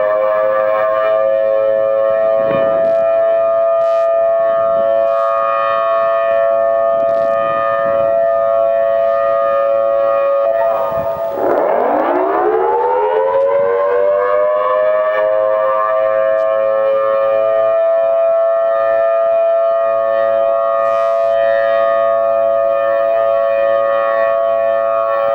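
Whelen WPS-series electronic outdoor warning siren sounding a Thunderbolt-style wail: a loud, held, dissonant chord that drops sharply in pitch about eleven seconds in and climbs back up, then starts to fall again right at the end. Echo off a nearby school building and houses adds to the dissonance.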